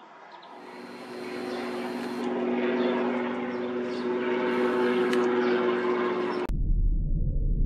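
Robinson R22 helicopter flying overhead, its piston engine and two-blade rotor running with a steady hum that grows louder as it comes closer. About six and a half seconds in the sound cuts suddenly to a much deeper, slowed-down version.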